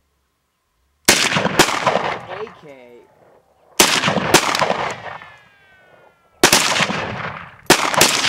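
AK-pattern rifle fired in single shots: about six shots, several in quick pairs, each trailing off in a long echo.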